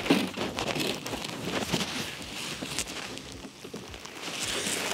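Microphone handling noise from a phone being moved and pushed through a tight gap: an irregular jumble of rubbing, scraping and knocks against the mic.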